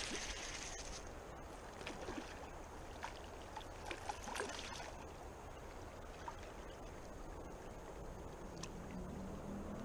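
A hooked chub splashes and thrashes at the surface of a shallow river, making scattered sharp splashes between about two and five seconds in, over steady trickling water.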